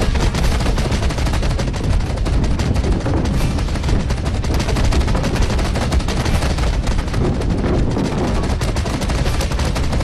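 Machine-gun fire sound effect: a rapid, unbroken rattle of shots.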